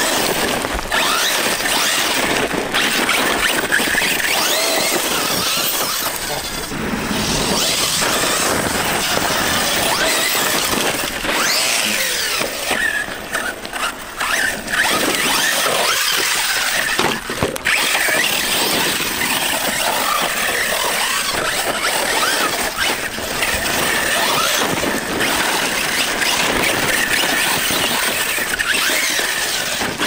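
Arrma Kraton 6S BLX brushless electric RC truggy driving hard: a high squealing whine from its motor and drivetrain that wavers up and down with the throttle.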